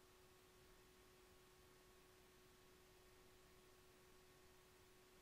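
Near silence: faint even hiss with a steady low electrical hum-like tone, the recording's own background noise.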